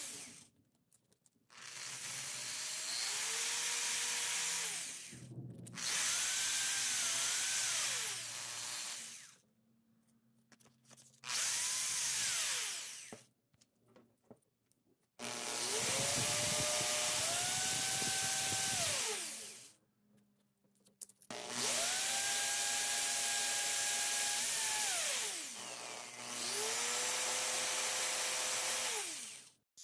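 Corded electric drill spinning a small metal toy-car axle against sandpaper to sand the rust off it. It runs in about six bursts; each time the motor whine rises as the trigger is pulled and falls away on release, with short pauses between.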